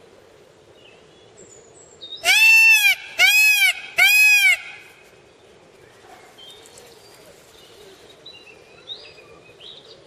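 Indian peafowl (peacock) calling: three loud, wailing calls in quick succession, each rising and then falling in pitch. Faint birds chirp in the background.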